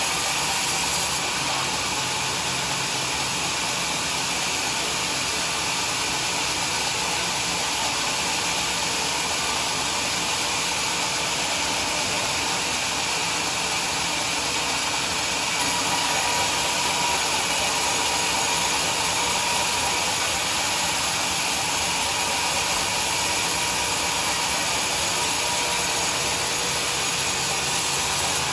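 Sawmill saw running steadily with a continuous, even noise that gets slightly louder about halfway through.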